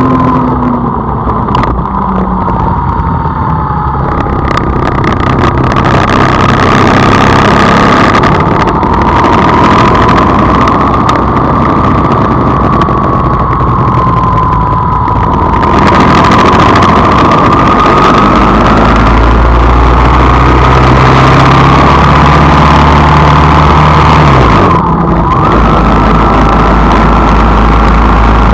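A car engine running with road noise while driving, loud and steady. Its note dips and then picks up again about three-quarters of the way through.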